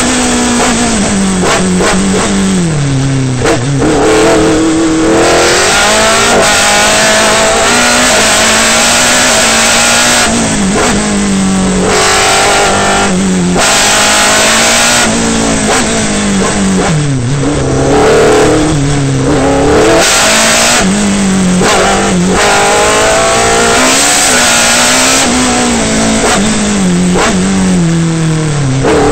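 Osella PA9 sports-prototype race car engine heard from the cockpit, revving hard and changing gear. Its pitch climbs and then falls sharply again and again as the car accelerates, brakes and downshifts for each bend.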